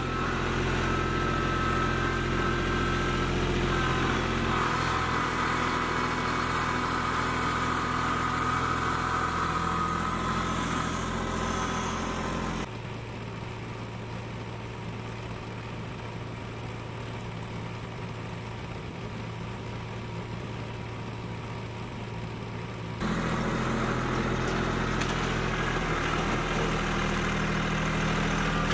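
Kubota B2261 compact tractor's diesel engine running steadily with a constant pitch while digging with the front loader. About a third of the way in the sound drops to a quieter, steady engine sound for about ten seconds, then the engine is loud again near the end.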